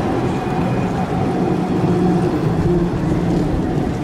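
A vehicle running steadily, a low humming tone over a constant noise, with no clear change in pitch or level.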